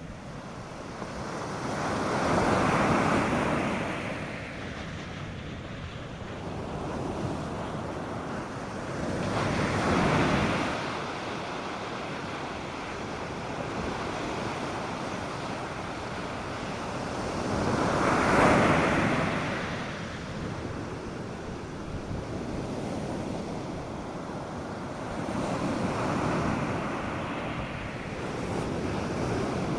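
North Sea surf breaking on a sandy beach: four waves swell and wash in, with a steady rush of water between them. Light wind buffets the microphone.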